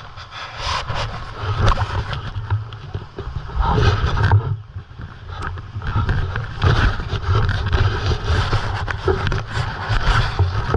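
River water splashing and rushing around people wading through it, with many small knocks and an uneven low rumble that rises and falls.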